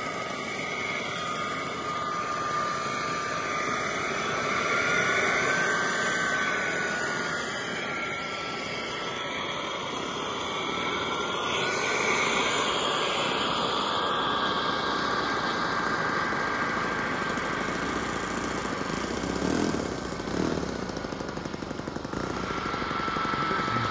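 Xicoy X45 model jet turbine in a Freewing F-22 running at low power while taxiing: a steady rushing noise with a high whine that drifts slowly up and down in pitch, and two brief surges near the end.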